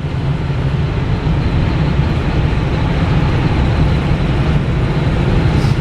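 Steady drone of the 2010 Ford F-450's turbo diesel engine and road noise, heard from inside the cab while the truck is driving.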